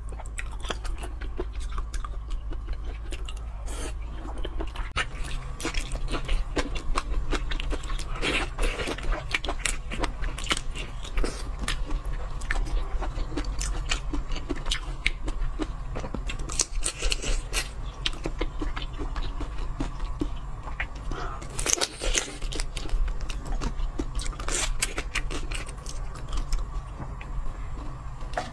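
Close-up chewing of whole raw marinated shrimp: wet smacking and sucking with crunching of shell and head, many short crackles and clicks throughout.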